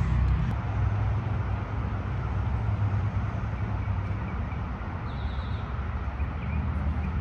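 Steady low rumble of a motor vehicle engine running nearby.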